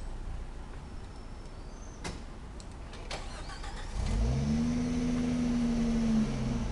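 Off-road 4x4's engine running low, with a couple of sharp knocks, then revving up about two-thirds of the way in, holding the revs and dropping back near the end.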